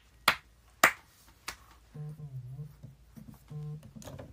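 Three sharp hand claps in the first second and a half, then a smartphone on vibrate buzzing for an incoming call: a low buzz in two pulses, the second shorter.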